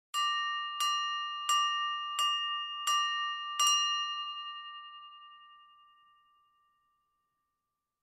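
A piece of silverware tapped against a glass six times, evenly about two-thirds of a second apart, each tap ringing with one clear tone. The last ring fades out over about three seconds.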